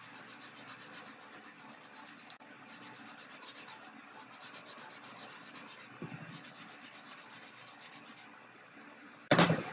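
A sanding stick rubbed in quick back-and-forth strokes over a 3D-printed black PLA model fuselage, a fast scratchy rasp with a few short pauses. Near the end comes a brief loud burst of noise, louder than the sanding.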